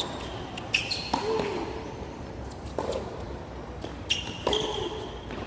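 Tennis rally on a hard court: a series of sharp pops as the ball is struck by the rackets and bounces on the court, about five in all.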